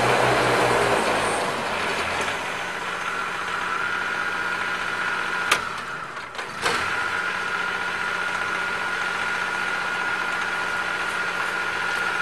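Vanguard three-cylinder diesel engine of a Toro Z-Master zero-turn mower running steadily. Its low, heavy note drops away about a second in, leaving an even hum with a thin high whine. Two sharp clicks come about a second apart near the middle.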